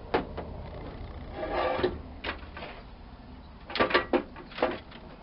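Metal knocks and clanks of an electric winch being handled and set onto its steel bumper mount. A quick cluster of sharp clanks comes near the end, with a short scrape before it.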